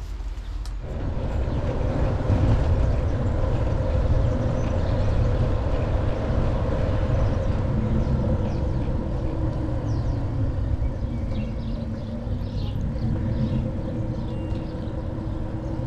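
Steady low rumble of wind and rolling noise while riding an e-bike, with a steady hum above it; the rumble builds up about a second in.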